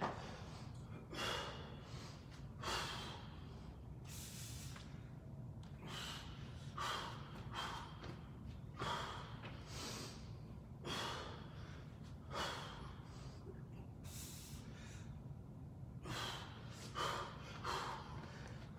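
A man breathing hard from exertion, sharp puffs of breath about one every second or so, over a steady low hum.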